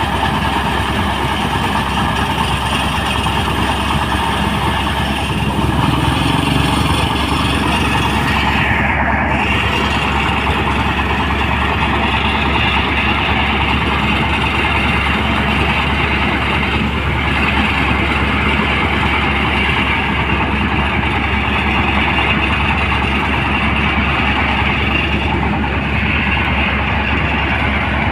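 Motorised rice thresher running steadily, its engine and threshing drum making a continuous loud drone.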